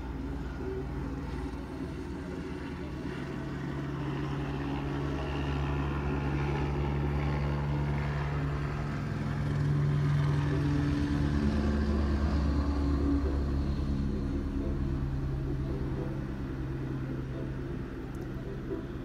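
A steady low engine drone that grows louder through the middle and eases off later.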